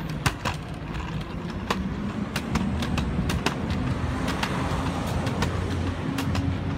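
Steady low hum of the LNG Autocar ACX McNeilus front-loader garbage truck idling some way off, with sharp, irregular clicks and taps close to the microphone.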